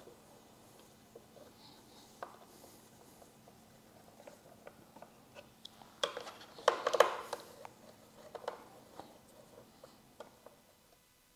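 Hand work with a 3/16 Allen key backing out the bolts that hold a motorcycle fairing's radio pocket: faint scattered clicks and scrapes of the key and bolts. About six seconds in, a short run of louder clicks and rattles follows.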